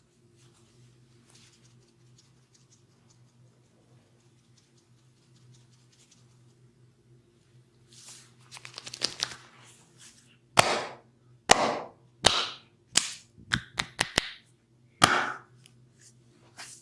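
Massage skin cracking: hands strike bare skin in a run of about eight sharp, loud cracking slaps over some five seconds. Before the slaps come about two seconds of hands rubbing and rustling on skin.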